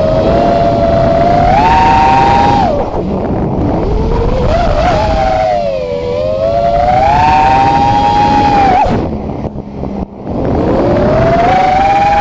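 FPV quadcopter's brushless motors whining, heard through the onboard camera's microphone. The pitch rises and falls with the throttle, dropping away sharply about 3 seconds in and again about 9 seconds in, then climbing back.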